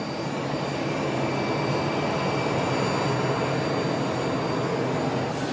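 Steady jet-turbine noise: a broad rush with thin, high whining tones above it.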